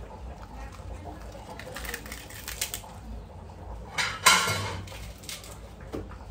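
Napa cabbage leaves being torn and snapped from the head, with light crisp rustles, and one sharp clatter of plastic bowls knocking together a little after four seconds in.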